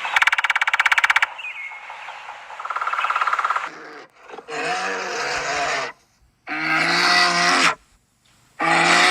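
Animal calls: a fast rattling trill in the first second and a shorter one a couple of seconds later, then three long, drawn-out pitched calls of about a second each with short gaps between.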